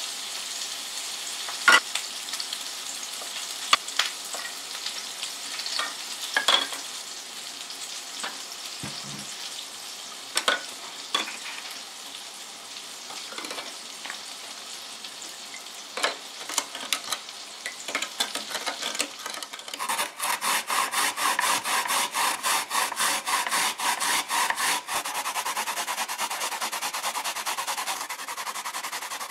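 Seasonings being poured into a plastic measuring cup and stirred with a spatula, with scattered knocks and taps. About twenty seconds in, a daikon radish is grated on a plastic grater box in fast, even rasping strokes.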